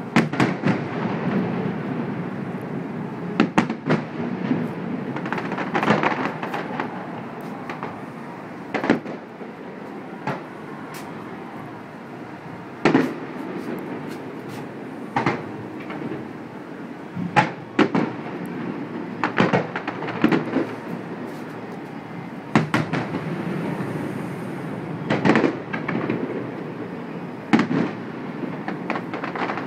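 Fireworks display: a string of sharp bangs from aerial shells bursting at irregular intervals, over a continuous rumble of echoing explosions.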